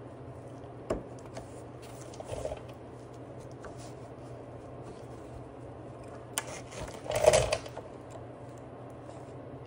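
Screwdriver prying at a Husqvarna mower's drive wheel gear on its axle: a sharp click about a second in, a brief scrape, then a louder scraping rattle around seven seconds in. A steady low hum runs underneath.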